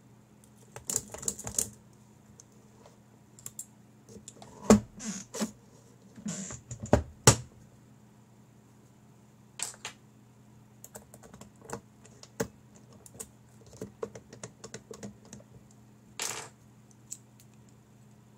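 Lock pick and tension wrench working the lock cylinder of an Eyecase motorcycle top box, with quick metallic clicks and scrapes as the lock is picked open. The loudest clicks come about five to seven seconds in, followed by scattered lighter ticks.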